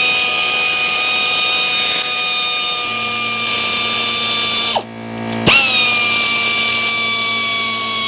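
Cordless electric ratchet running, a steady motor whine whose pitch sags slowly as it backs out an alternator mounting bolt. It stops for about half a second a little past halfway, then starts again.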